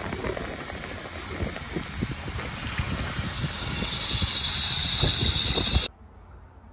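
Narrow-gauge steam locomotive standing at the platform, with steam hissing that grows louder and stronger toward the end, among a few scattered knocks. The sound cuts off suddenly about six seconds in, leaving a quiet background.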